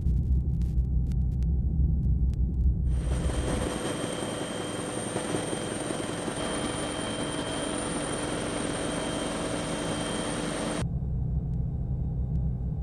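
Helicopter in flight close by: a steady rushing rotor and engine noise with a high whine, starting about three seconds in and cutting off suddenly near the end. A low rumble comes before and after it.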